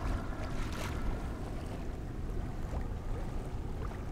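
Steady wind buffeting the microphone, with water washing around the boat.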